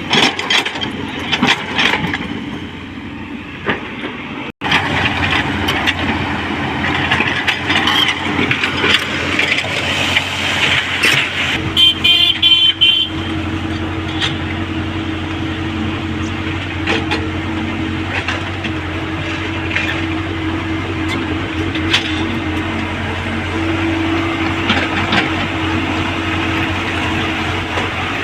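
Excavator engine running steadily under load, with a short horn blast about twelve seconds in. The sound drops out for an instant about four and a half seconds in.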